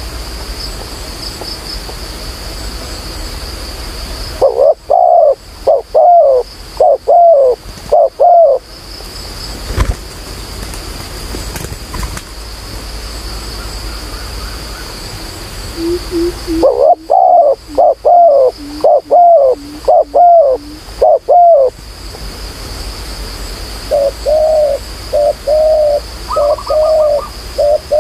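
Spotted dove cooing: three runs of quick, repeated coos, a few seconds apart, over a steady high-pitched whine.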